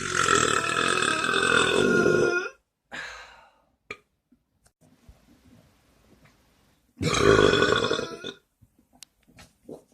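A person's big, loud burp that runs on from before and cuts off about two and a half seconds in, followed near the end by a second burp lasting about a second and a half.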